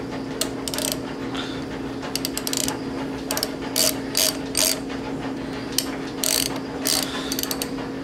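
Small socket ratchet clicking in short bursts of back-strokes as the V-band clamp bolt on a turbocharger is tightened down. There are about eight bursts, some longer runs of clicks and some single quick strokes.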